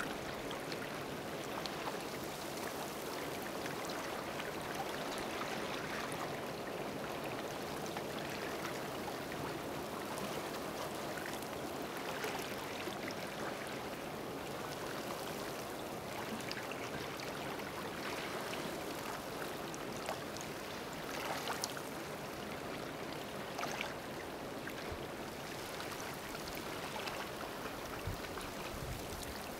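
Seawater trickling and lapping in a shallow tidal rock pool: a steady watery wash with faint scattered drips and pops.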